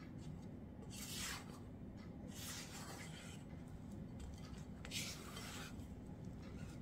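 Silicone spatula scraping and stirring flour into a shaggy bread dough in a glass bowl: three faint scraping swishes, about a second in, about halfway through and about five seconds in, over a low steady hum.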